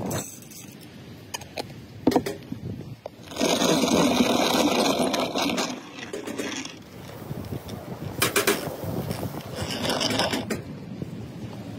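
Coffee beans clattering into the steel hopper of a wooden-box hand-cranked coffee grinder, then the crank turned in two spells of grinding, a dense grating crunch as the burrs crush the beans.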